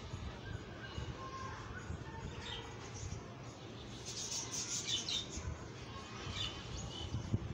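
Birds chirping and tweeting in short high calls, scattered through, with a cluster of chirps a little past the middle.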